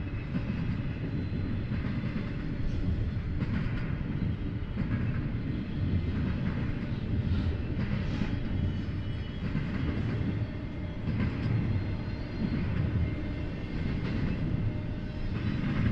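Double-stack intermodal well cars rolling past: a steady low rumble of steel wheels on rail, with occasional light clicks.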